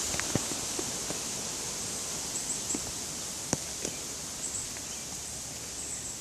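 Steady outdoor background hiss with a few light clicks and knocks scattered through it, the sharpest about three and a half seconds in.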